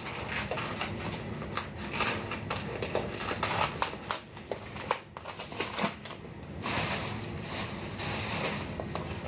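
Irregular clicks, taps and crinkling of food prep being handled in a kitchen, with a couple of longer crinkly rustles about two-thirds of the way in.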